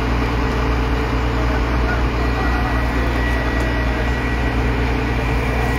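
Engine of a railway breakdown crane running steadily, a low even hum with a thin high whine above it.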